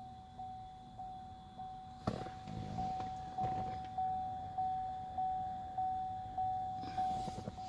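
Car warning chime dinging over and over at a steady pace, a little under two dings a second, each ding fading away, with the ignition on. About two seconds in there is a knock, followed by some handling clatter.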